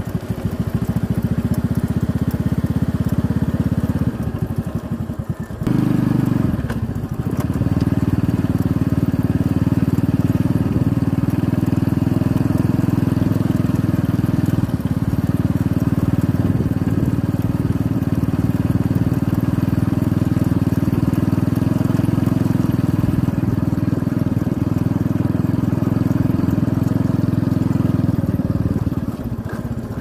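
Wind rumbling on the microphone of a moving motorbike, loud and steady, with the bike's engine running beneath it. It eases briefly about four to six seconds in and again near the end.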